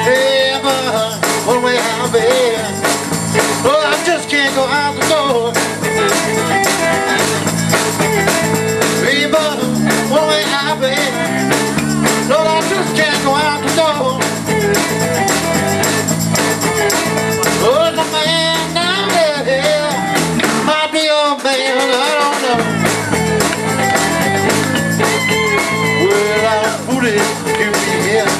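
Live blues-rock band of electric guitars, bass guitar, drums, keyboards and hand percussion playing an instrumental passage, with a lead electric guitar bending and gliding between notes over the rhythm section. About 21 seconds in, the bass and drums drop out for a second or so while the guitar carries on, then the full band comes back in.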